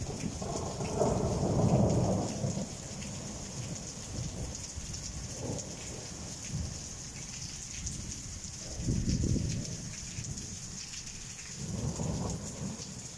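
Steady rain hissing down on clay roof tiles during a thunderstorm, with low rolling rumbles of thunder, the loudest in the first couple of seconds and weaker ones later, twice.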